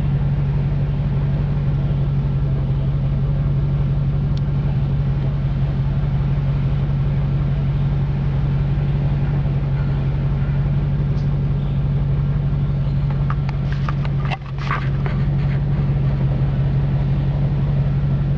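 Land Rover engine running steadily at a low, even idle-like hum. About two-thirds of the way in it dips for a moment, with a few sharp knocks around it.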